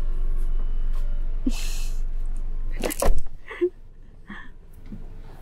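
Steady low rumble of a car cabin. About three seconds in, a thump and the rumble cuts off. A short breath comes before it, and a few faint, brief murmurs after.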